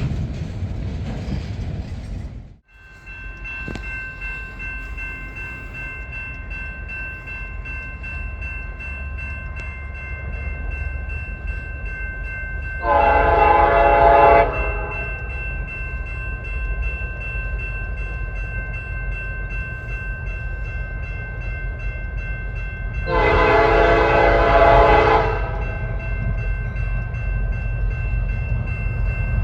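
Train rumbling past with a steady low rumble while its locomotive horn sounds two blasts, a shorter one about halfway through and a longer one near the end.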